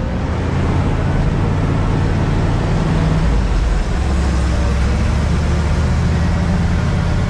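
Old farm truck's engine running steadily while the truck is driven, a low drone heard from inside the cab.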